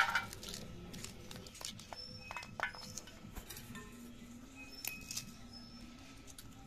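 Green pea pods being split open by hand and the peas dropping into a steel bowl: scattered soft snaps and light clinks.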